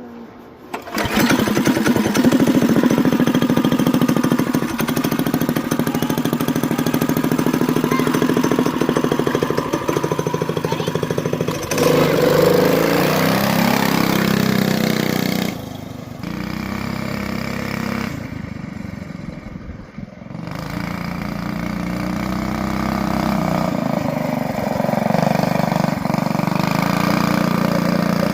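Go-kart's small gas engine, fitted with a larger-port carburetor and an aftermarket exhaust with the silencer left on, starting about a second in and running, its pitch rising and falling as the throttle changes, with quieter stretches past the middle.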